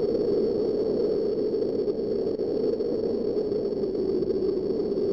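A steady, noisy low drone with a faint thin whine above it, cutting off suddenly at the end.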